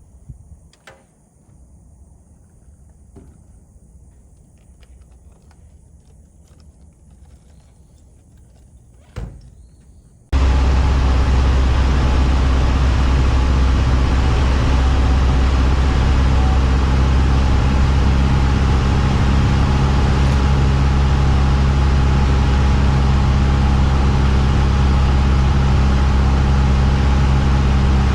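Piper Cherokee's piston engine running at a steady, loud drone, which starts abruptly about ten seconds in. Before it there are only faint handling noises and a few clicks.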